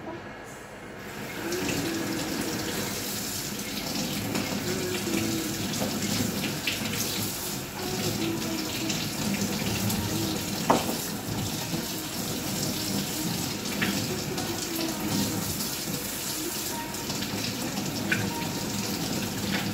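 Kitchen tap running from about a second and a half in, the water splashing over button mushrooms being rinsed by hand, with an occasional light knock.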